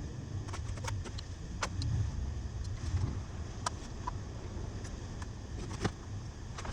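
Scattered light metallic clicks and clinks of hand tools and bolts against the milling machine's steel, over a steady low rumble.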